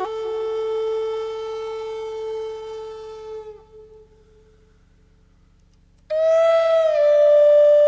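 Background music on a flute-like wind instrument: one long held note that fades out about halfway through, then, after about two seconds of near silence, a higher long note begins suddenly.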